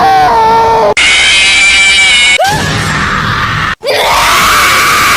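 Loud, sustained screams from a series of clips spliced back to back, each cut off abruptly and replaced by the next, about every second and a half. The first falls in pitch; the later ones are held higher and rougher.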